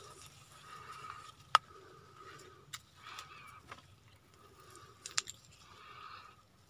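Footsteps on a dirt forest path strewn with dry leaves and twigs: faint crunching with a few sharp clicks, the loudest about one and a half seconds in and a quick pair about five seconds in.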